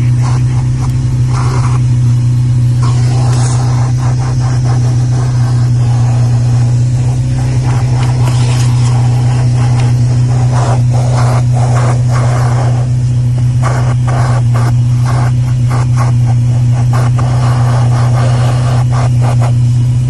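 Fujihama 1200 W wet/dry vacuum cleaner running with a steady low hum, its hose nozzle sucking and scraping over car floor carpet, with irregular crackles and rattles as dirt is drawn up.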